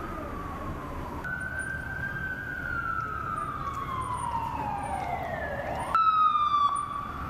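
Fire engine siren wailing in long, slow sweeps that slide down in pitch. About six seconds in it switches abruptly to a louder, harsher tone for under a second, then settles into a steadier, higher note.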